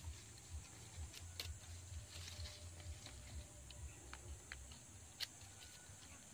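Faint scattered clicks and light rustling as a wooden stick is worked through a whole fish to skewer it, with dry leaf litter underfoot.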